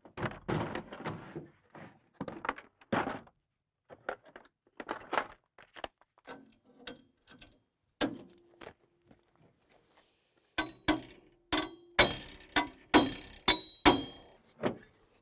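Metal hand tools clinking and clanking on a steel pickup tailgate as locking pliers are clamped onto a steel bar. A quick run of sharper metallic clanks near the end, some ringing briefly.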